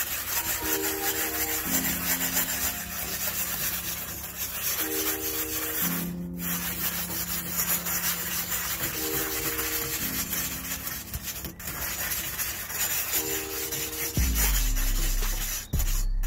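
A grill grate stone is scraped back and forth over a kamado grill's metal wire cooking grates, making a steady gritty rubbing as it cleans them. Background music with sustained chords plays underneath, with a heavy bass coming in near the end.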